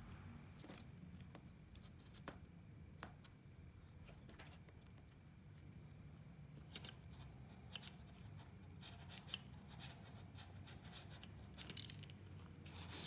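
Faint scattered clicks and rustles of gloved hands handling wires and small plastic parts of a soldering gun, more frequent toward the end, over a low steady room hum.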